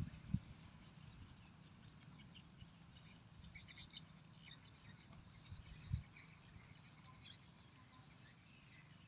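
Faint outdoor farm ambience: small birds chirping sporadically, with a few low thumps, one just after the start and one about six seconds in.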